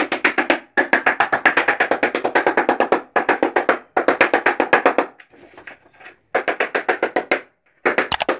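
Background music with a rapid, even percussive beat of sharp wood-block-like drum hits, about nine a second, stopping and restarting several times, with the longest pause about five seconds in.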